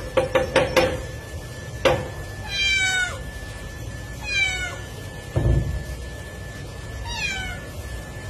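A cat meows three times, each a short, high call that falls in pitch. Before the meows comes a quick run of pitched taps in the first second, and between the second and third meow there is a dull thump.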